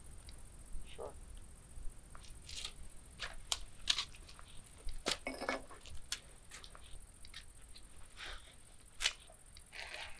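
Scattered scuffs, taps and clothing rustles of two people stepping up to a low stone wall and sitting down on it.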